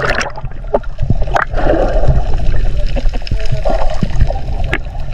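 Water heard through a submerged camera: a muffled low rumble with gurgling and a few sharp clicks, stirred by a free diver swimming with fins.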